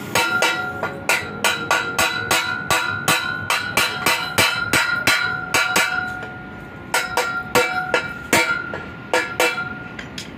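Rapid hammer blows on metal, about three a second, each leaving a ringing tone. The hammering pauses briefly about six seconds in, starts again, and stops near the end.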